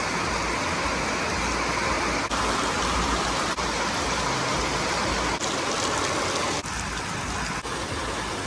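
Heavy rain pouring down, a steady dense hiss, with a few brief breaks where short clips are joined.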